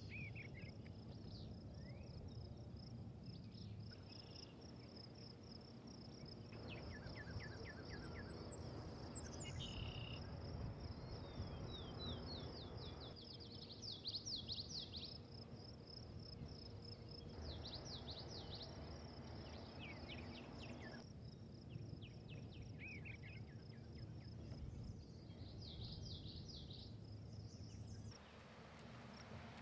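Outdoor countryside ambience: a steady, high, pulsing insect trill throughout, with birds chirping now and then over a faint low rumble. The low background changes abruptly every few seconds.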